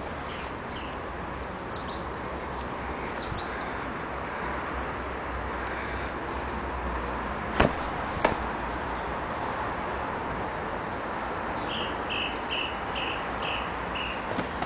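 A football being kicked about: two sharp knocks a little past halfway, about two-thirds of a second apart. Garden birds chirp throughout, and near the end one repeats a short note about seven times.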